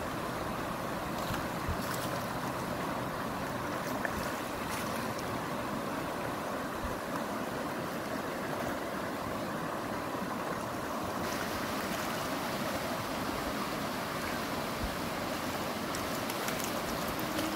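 Steady rushing of a stream running over a rocky riffle, with a few brief sharp sounds near the end.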